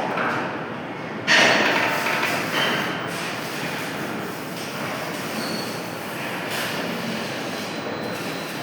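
Pipe-cutting lathe running, a steady mechanical noise. A much louder noise starts suddenly about a second in and dies down over the next couple of seconds.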